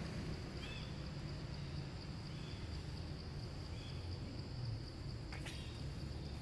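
Outdoor ambience: a low rumble and a steady high hum. Three short high chirps come about a second, two and a half and four seconds in, and a single sharp click comes about five seconds in.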